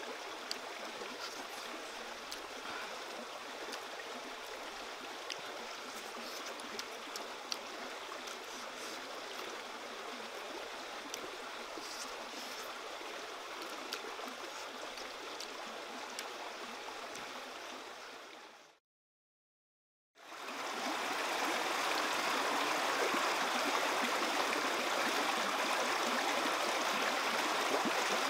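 Stream water running steadily, with faint scattered clicks over it. The sound fades out to silence about 19 seconds in and comes back a second and a half later, louder.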